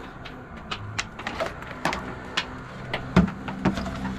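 A plastic battery-charger case and its cable being handled and set against a car's tyre and fender: a string of irregular clicks and knocks, the loudest about three seconds in.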